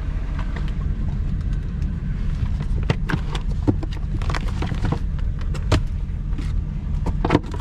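A 2007 Mercedes SL550's V8 idling with a steady low hum, with scattered sharp clicks and taps of parts being handled, the clearest about three to four seconds in and near the end.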